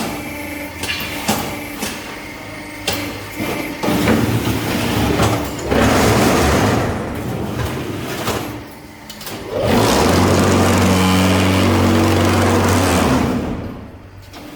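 Concrete block press machine at work: a few knocks and clanks at first, then two loud spells of its vibrator motors shaking the mould. The second spell is a steady low buzz that stops near the end.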